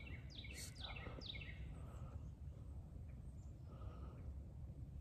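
A small bird calling: a quick series of about four high, downward-sliding chirps in the first second and a half, over a steady low background rumble.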